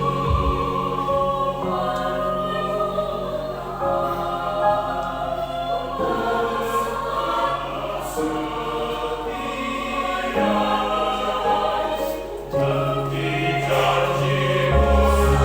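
Church choir singing a hymn in several voice parts, holding sustained chords that change every second or two over a steady low bass.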